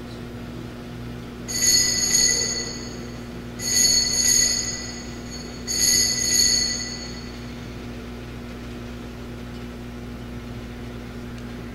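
Altar bells shaken three times, each ring lasting about a second and a half, marking the elevation of the chalice at the consecration. A steady low hum runs underneath.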